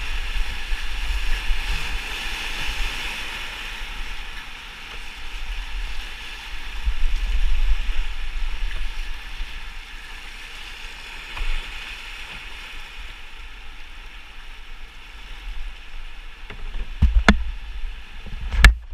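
Whitewater rapids rushing and splashing around a canoe, a steady churning hiss with a low rumble underneath. A few sharp knocks come near the end.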